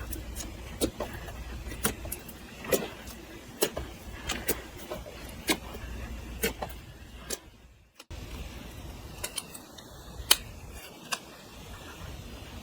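Clear slime being pressed and worked by hand, giving irregular sharp clicking pops, about one or two a second. The sound drops out briefly about eight seconds in, then the clicks carry on.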